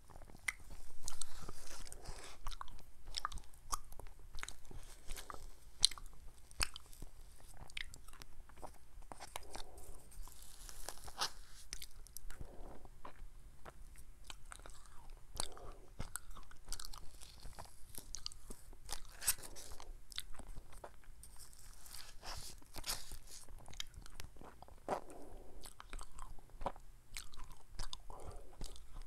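Close-miked eating sounds: a person taking ice cream off a plastic spoon and chewing it, with many sharp wet mouth clicks and smacks and no talking.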